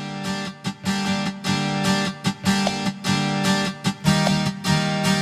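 Background music: guitar chords strummed in a steady rhythm.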